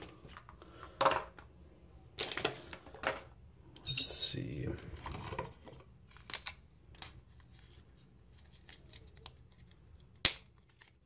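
Hard clear plastic packaging and plastic trimmer attachments being handled: several short bouts of crinkling and rustling in the first half, then a few sharp plastic clicks, the sharpest near the end.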